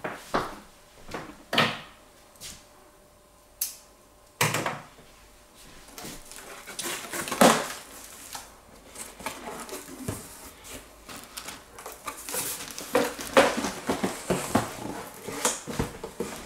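Cardboard shipping box being opened by hand: a few sharp knocks and snaps in the first seconds, then steady rustling and crinkling as the cardboard flaps are folded back and the bubble wrap inside is handled.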